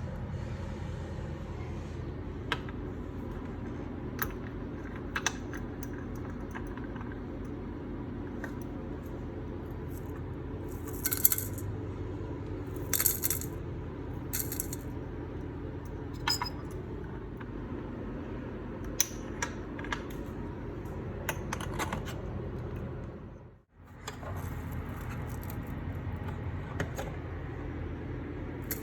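Scattered light clinks and clicks of small hard objects over a steady low background hum, with a few brighter clinks near the middle. The background briefly cuts out about three quarters of the way through.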